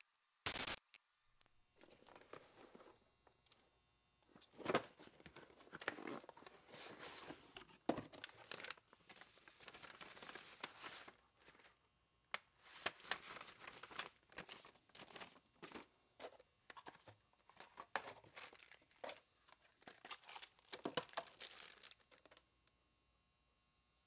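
Paper rustling and crinkling in irregular bursts as a kraft paper envelope and new paper gaskets are handled over a cardboard box, after one brief sharp noise near the start.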